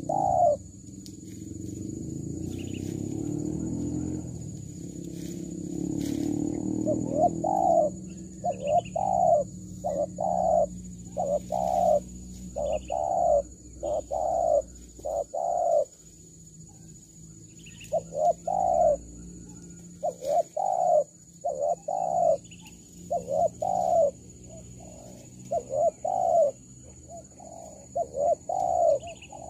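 Spotted dove (tekukur) cooing: repeated short coo notes in phrases, about one or two a second, starting about seven seconds in. A low rumble fades out over the first seven seconds.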